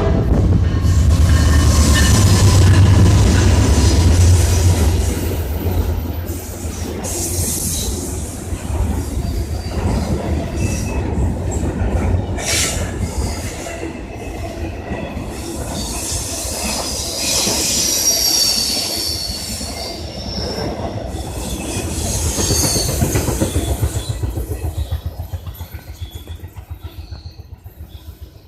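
Norfolk Southern freight train passing close by. The diesel locomotives rumble loudly for the first few seconds, then the cars roll past with wheel squeal and clickety-clack over the rail joints, fading away near the end.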